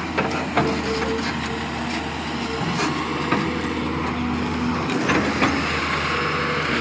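Doosan 140-class wheeled excavator's diesel engine running steadily as its hydraulics swing the boom and drive the bucket into the soil, with a few sharp knocks.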